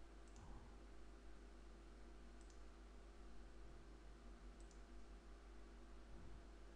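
Near silence with three faint computer mouse clicks about two seconds apart, over a low steady hum.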